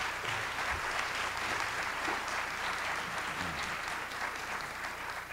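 Audience applauding steadily, a dense patter of many hands clapping, beginning to die away near the end.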